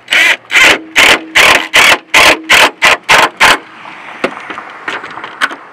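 Impact wrench with a 13 mm deep socket running down the BMW E36 strut top-mount nuts in about ten short trigger bursts, roughly two or three a second, stopping about three and a half seconds in. A few light clicks of the tool and socket follow.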